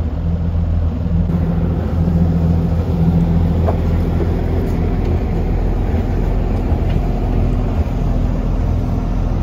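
Yakatabune pleasure boat's engine idling at the pier with a steady low hum.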